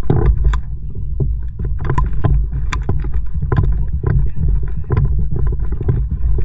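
Kayak paddling: short splashes and knocks of the paddle, repeated roughly every half to three-quarters of a second, over a steady low rumble of water and wind on an action camera's microphone.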